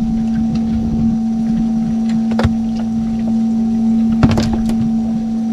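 A steady motor hum held at one pitch, with a few sharp knocks about two and a half seconds in and again around four and a half seconds in, while a handline is hauled in on a small boat.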